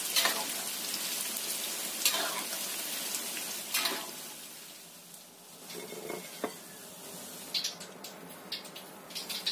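Pieces of tofu sizzling in hot frying oil, with three sharp knocks of a utensil against the pan as they are lifted out. After about four seconds the sizzle dies down, leaving a few faint clinks.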